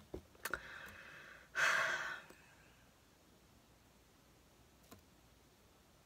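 A person sighs once, a breathy exhale about a second and a half in, with a few soft clicks just before it.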